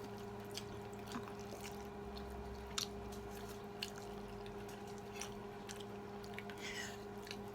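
Eating sounds: faint chewing with scattered small clicks and smacks, over a steady low hum.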